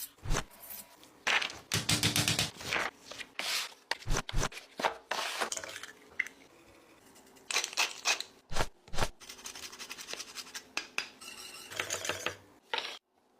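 Kitchen food-preparation sounds: an irregular run of sharp knocks, scrapes and rustles as utensils and dishes are handled, with a brief ring about six seconds in. The sounds stop suddenly just before the end.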